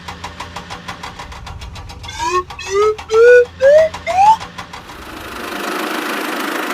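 Cartoon sound effects: a rapid puttering engine-like ticking over a low hum, then a run of five or six quick rising chirps, each higher than the last, and finally a swelling whoosh that builds toward the end.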